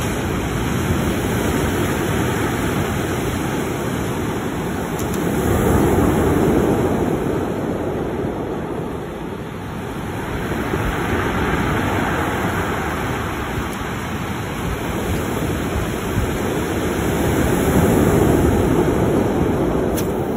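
Ocean surf breaking on a cobble beach, the wash swelling and easing about every six seconds.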